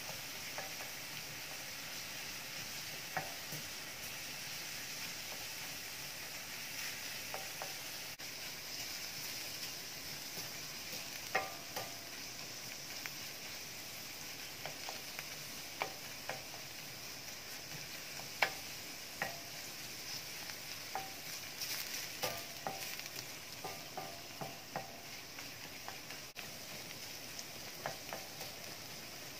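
Chopped onion and tomato paste sizzling in olive oil in a stainless steel frying pan. A wooden spoon stirs it, tapping and scraping against the pan now and then.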